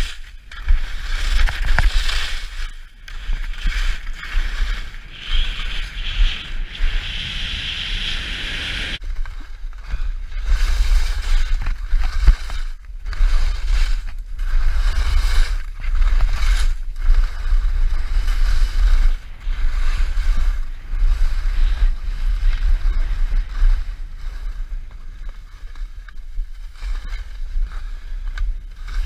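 Skis hissing and scraping over hard-packed snow at speed, with wind rumbling on the microphone. The scraping is steadiest and loudest for the first several seconds, then comes in broken stretches.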